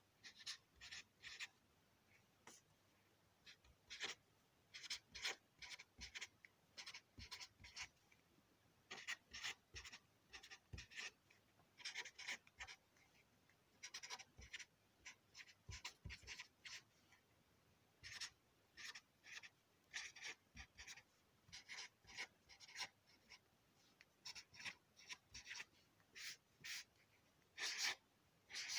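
Felt-tip marker writing on notepad paper: short, irregular squeaky strokes of the tip dragging across the page, with brief pauses between words.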